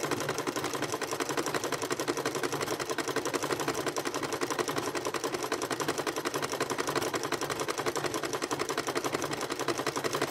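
Electric sewing machine running steadily, its needle stitching a three-step zigzag through a coil of fabric-wrapped rope, a rapid, even clatter of needle strokes.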